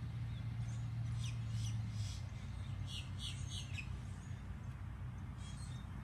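A songbird singing quick runs of three or four short, high, downward-slurred notes, twice, with a single note near the end, over a steady low hum.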